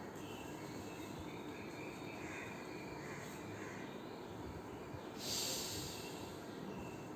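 One long, audible breath about five seconds in, a hiss that swells and fades over about a second, over faint steady room noise.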